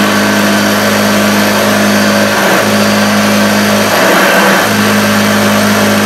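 A 1976 Hoover Junior upright vacuum cleaner running on a rug after restoration, with a low steady hum that breaks briefly a few times as it is pushed back and forth.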